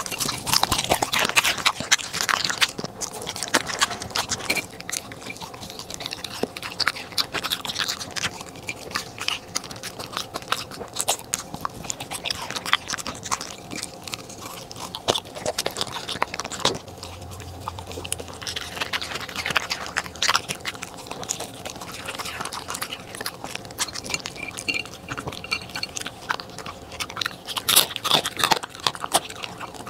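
A corgi chewing and crunching raw food off a plate, with many irregular crisp bites. Near the end it crunches through crispy quail feet.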